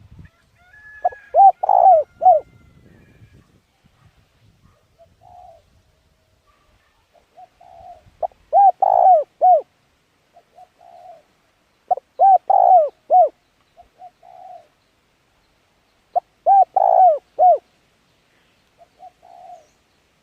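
A bird calling in repeated phrases of three or four low, rounded, rising-and-falling notes. Four phrases come a few seconds apart, with softer single notes between them.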